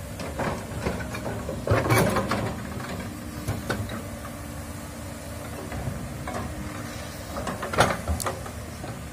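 Tracked hydraulic excavator working: its diesel engine runs steadily while the bucket and linkage clank and scrape as the bucket goes into the soil, with the loudest clanks about two seconds in and near the end.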